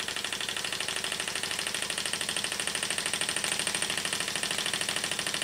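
Märklin live-steam toy donkey engine running steadily, its single cylinder giving rapid, even puffs of exhausting steam.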